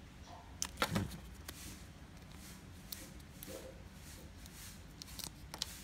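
Light handling noises: a small plastic toy car turned in the fingers and a paper sticker sheet rustling as a sticker is peeled off, with a few sharp clicks, the loudest about a second in.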